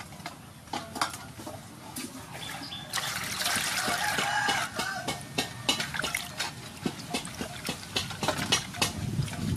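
Large sea snails being scrubbed by hand in a metal basin of water: water splashing and sloshing, with the shells knocking against the basin. The splashing starts about three seconds in, after a few scattered knocks.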